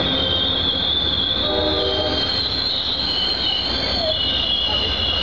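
Amtrak passenger cars rolling slowly past with a high, wavering squeal of brakes and wheels throughout as the train slows into the station, over a steady low rumble. A lower steady tone comes and goes briefly about two seconds in.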